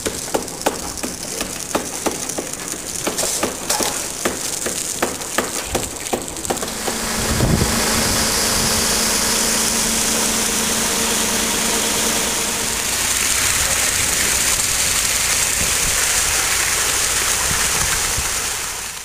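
A series of sharp clicks and knocks. About seven seconds in, a concrete mixer truck starts running steadily: engine hum under a strong high hiss as it discharges concrete.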